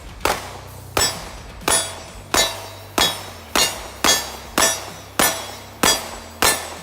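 A CZ P10 C 9mm pistol fired in a steady string of about eleven shots, roughly one every 0.6 seconds, each shot with a short metallic ring.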